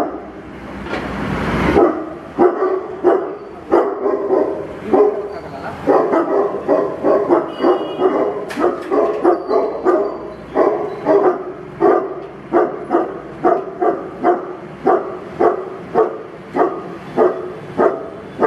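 Tibetan mastiff barking over and over in a steady run, about two deep barks a second. A brief rushing noise comes just before the barking starts.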